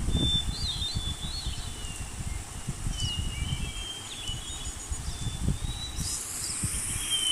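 Outdoor ambience with small birds chirping in short, scattered calls over a low rumbling background noise, and a high hiss coming in near the end.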